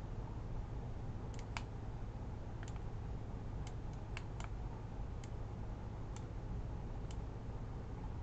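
Computer mouse clicking: about ten short sharp clicks at uneven intervals, some in quick pairs, as map markers are clicked and dragged. A steady low hum runs underneath.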